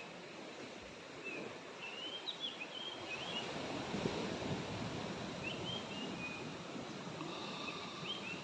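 Outdoor ambience: a steady rushing background noise with small birds chirping in short runs of high notes several times.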